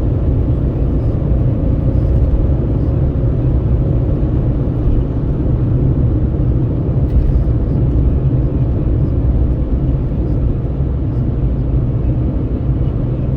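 Steady road noise of a vehicle travelling at highway speed, heard from inside: a deep rumble of tyres and engine with wind rushing at the window.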